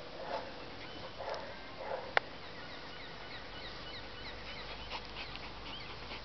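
Black Labrador making a few short, soft vocal sounds in the first two seconds while playing with a toy, with a single sharp click just after two seconds. Faint quick high chirps follow through the rest.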